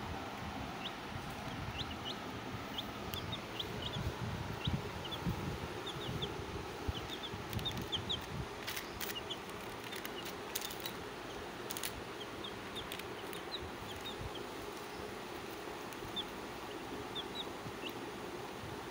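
Baby chicks peeping: many short, high cheeps, some in quick runs, over a steady background hiss. A few sharp clicks come about nine to twelve seconds in.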